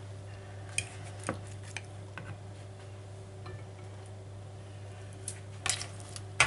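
Light clicks and clinks of a fork and a plastic slotted serving spoon against a plate and a cooking dish while serving prawns: a few scattered taps, with a couple of sharper ones near the end, over a steady low hum.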